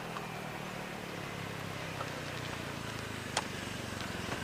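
Steady low hum of a motorcycle engine running some way off, with a few faint short ticks over it.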